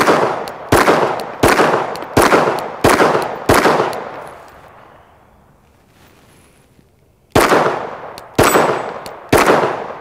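Gen 3 Glock 19 9mm pistol firing Wolf steel-case 115-grain ammunition: six shots about 0.7 s apart, a pause of a few seconds, then three more shots about a second apart. The pistol cycles the underpowered-reputed steel-case rounds without a stoppage, ejecting the brass well.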